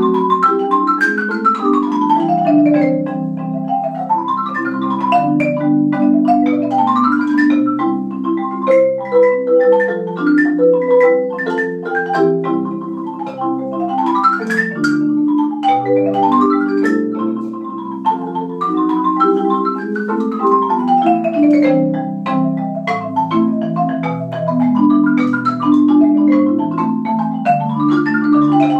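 Yamaha marimba played four-hand by two players: sustained low notes underneath quick runs of mallet strokes that sweep up and down the upper register.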